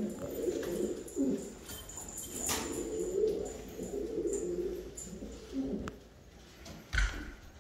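Domestic pigeons cooing, several low coos overlapping one another. A sharp click comes about two and a half seconds in, and a dull thump near the end.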